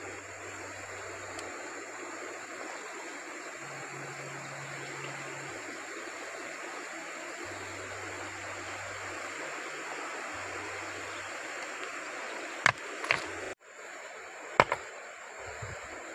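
Steady rush of a flowing river. Near the end come a few sharp knocks of river stones set down against each other.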